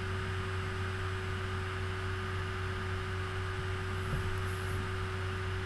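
Steady electrical hum in the recording, with a constant mid-pitched tone over low hum and faint hiss.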